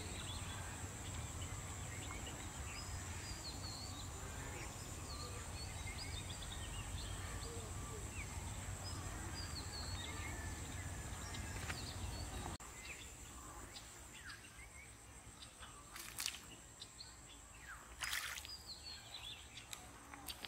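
Small birds chirping repeatedly over a steady low rumble of outdoor background noise; partway through the rumble drops away, and near the end come two short noisy splashes as a small fish is landed.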